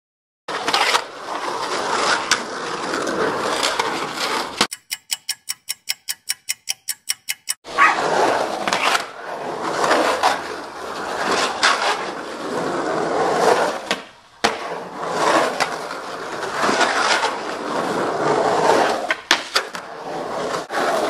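Skateboard wheels rolling and carving around the concrete walls of an empty swimming pool, the rolling noise swelling and fading with each pass. After the first pass comes a run of evenly spaced clicks, about four or five a second, for about three seconds. Near the end there are several sharp clacks as the board hits the pool and flies loose in a bail.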